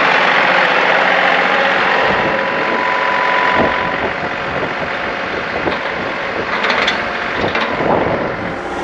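John Deere 2038R compact tractor's three-cylinder diesel engine running steadily while plowing snow, with a few knocks and clunks partway through.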